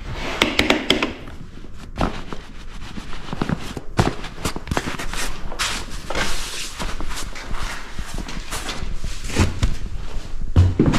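Handling noise of a bagged rifle being clamped into ratcheting rubber gun grips: a series of sharp clicks and knocks, including a quick run of clicks about a second in, over rustling of the soft gun bag.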